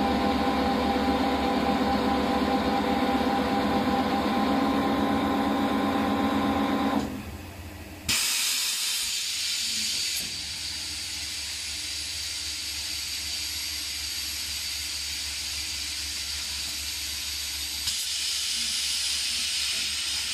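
A four-roll plate bending machine runs with a steady, pitched mechanical hum that stops about seven seconds in. About a second later a loud, even hiss starts suddenly and carries on.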